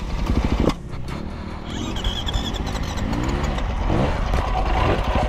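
Dirt bike engine running under throttle, its pitch rising and falling as it is revved several times.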